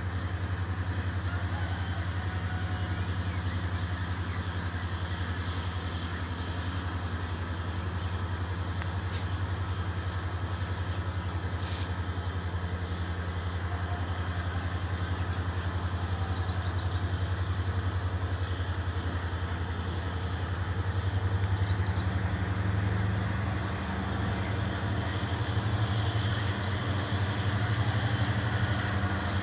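Diesel-electric locomotives of a loaded coal train running at low throttle as the train creeps forward, a steady low engine drone that grows louder about two-thirds of the way through. Insects trill in short runs in the background.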